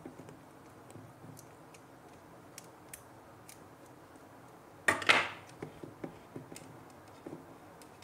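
Faint small clicks and taps of a screwdriver working the screws of a plastic screw-terminal wire connector, with light handling of the part and wire, and one brief louder noise about five seconds in.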